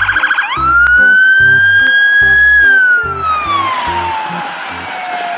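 Police car siren switching from a fast yelp into a wail: it rises quickly, holds high for about two seconds, then falls slowly and begins to rise again near the end. Background music with a steady bass beat plays under it.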